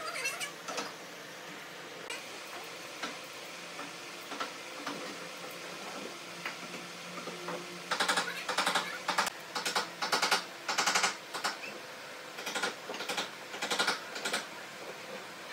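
Bristle paintbrush scrubbing epoxy resin along the edge of a tabletop in quick, scratchy strokes. The strokes are faint and sparse at first, then come in two runs of several strokes each from about halfway through.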